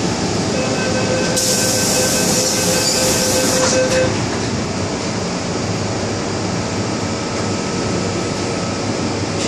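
MTR M-Train electric multiple unit running, a steady rumble of wheels and running gear. From about half a second in, a steady high whine at several pitches comes in, with a hiss over it for a couple of seconds. Both stop about four seconds in.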